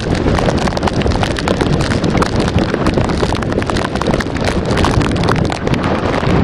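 Hurricane wind and water spray lashing a Jeep: dense, irregular splashing and pelting, with heavy wind buffeting the microphone.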